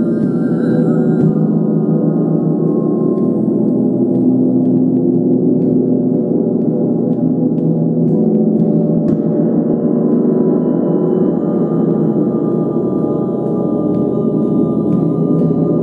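A 40-inch Mother Tesla gong played continuously with a felt mallet, its many overlapping tones sustaining into a dense, steady wash of sound.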